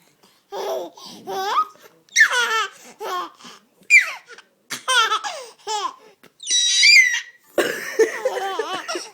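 A 7-month-old baby laughing in a string of short bursts and giggles, with a high squeal about seven seconds in.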